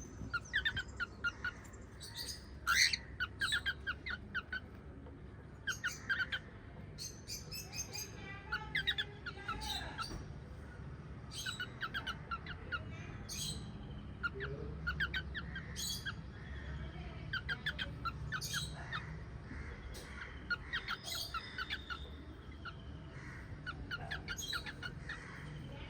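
Several small pet parrots chirping: short bursts of quick, repeated chirps that come again every second or two, over a low steady hum.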